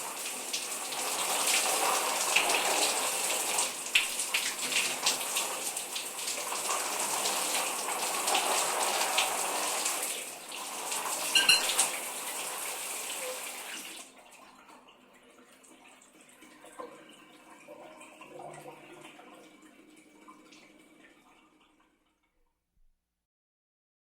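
Shower water spraying and splashing steadily, with a few sharper splashes; about fourteen seconds in the spray stops suddenly, leaving faint scattered dripping and movement sounds that fade out.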